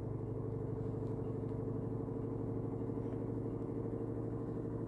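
Washing machine running with a steady motor hum.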